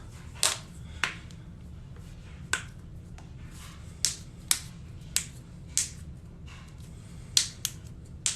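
Joints cracking during a chiropractic adjustment: a series of about nine sharp, irregularly spaced pops, the loudest about seven seconds in.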